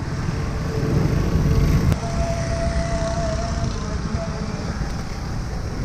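Vehicle road noise while riding along a road: a low engine rumble mixed with wind on the microphone. A faint thin whine comes in about two seconds in and lasts about two seconds.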